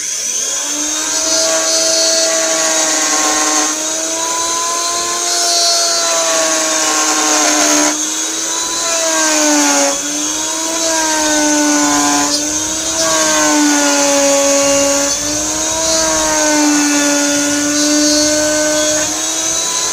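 Electric router cutting a circular groove through an MDF board along a marked circle. Its motor whines steadily, and the pitch sags and recovers several times as the bit is pushed into the cut.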